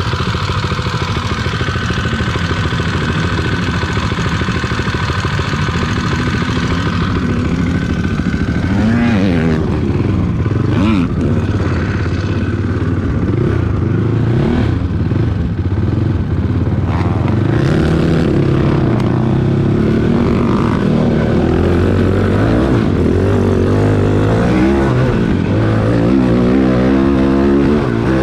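Cannondale quad's single-cylinder four-stroke engine idling steadily, then revving up and down as the ATV pulls away and rides, its pitch rising and falling with the throttle from about nine seconds in.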